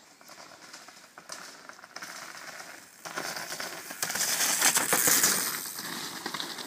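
A downhill mountain bike coming down a dirt trail and passing close by, its tyres crunching and skidding over loose dirt and debris, with rattling clicks from the bike. It grows louder, is loudest for a second or so as it passes, then fades away.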